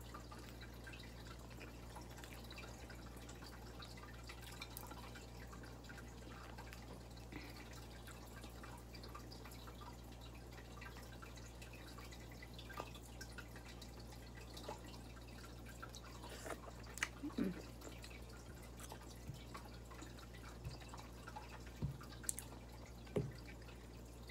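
Soft mouth sounds of eating with the fingers: chewing, lip smacks and small wet clicks, scattered sparsely, with a few louder clicks about two-thirds through and near the end. A steady low hum lies underneath.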